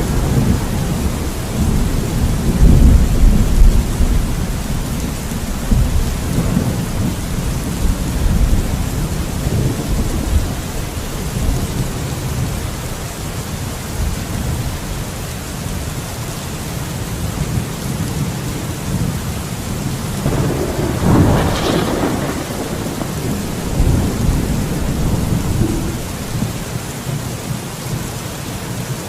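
Thunderstorm: steady heavy rain with rolling thunder. A deep rumble fades over the first few seconds, and a sharper crack of thunder comes about two-thirds of the way through.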